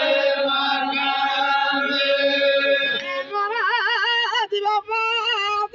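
Chogan devotional chanting: a singing voice holds long steady notes, then about three seconds in moves to a higher line with a wide, regular vibrato.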